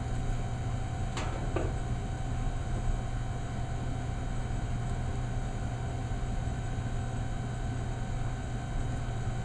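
Steady low electrical hum with a faint even hiss, and two brief faint sounds about a second and a half in.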